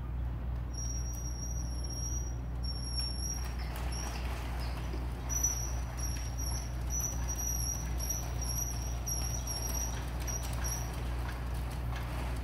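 Chain-link slide gate rolling shut under a LiftMaster CSL24U gate operator, still on its original drive sprocket: a thin, high-pitched squeak repeats in short runs from about a second in until near the end as the gate travels, over a steady low hum.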